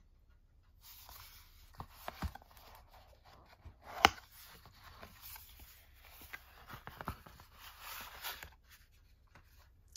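Cardboard folder being handled and opened: paper and card rustling and sliding as a card is drawn out, with a sharp tap about four seconds in and a few lighter taps.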